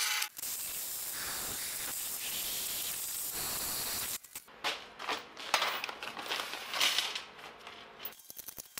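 Drill press bit cutting into steel flat bar: a steady hiss at first, then about four seconds in, an uneven scraping, rasping cut as chips break away. Faint light clicks of small metal parts near the end.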